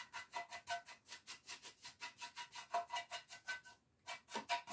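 Stiff paintbrush swished rapidly back and forth over a lamp, working in antiquing wax: quick, even scratchy strokes at about five a second, with a brief pause near the end.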